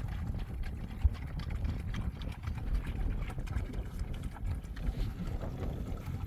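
Low, gusting rumble of wind on the microphone, with scattered small clicks and knocks over it.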